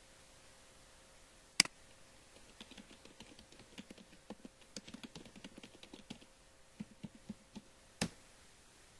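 Typing on a computer keyboard, a run of quick keystrokes, set between a sharp mouse click shortly before it and another near the end.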